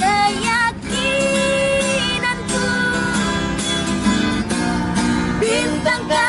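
Music: an acoustic guitar accompanying a melody of long held notes that slide between pitches.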